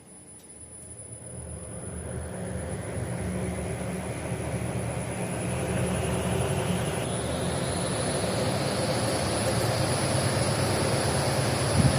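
Large bladed radiator cooling fan spinning up: a rush of air and motor noise that grows louder and rises in pitch over the first several seconds, then runs steadily at speed.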